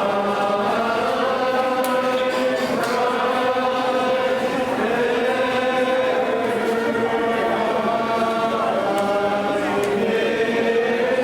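Slow, chant-like music of long held notes that shift in pitch every second or two, over a steady low drone.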